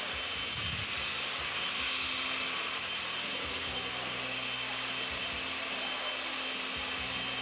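Countertop blender motor running steadily at speed, liquefying a green salsa in its glass jar: a constant whir with a steady hum under it.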